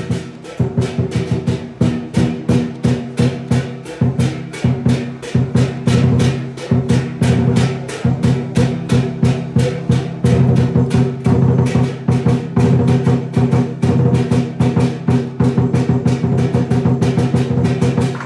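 Chinese lion dance percussion: a big drum with crashing cymbals beating a fast, steady rhythm.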